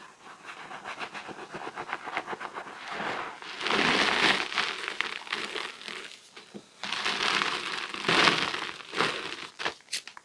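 Reformed gym chalk being crushed, a dense run of crisp crunching and crackling, with two louder spells of crunching and a few separate snaps near the end.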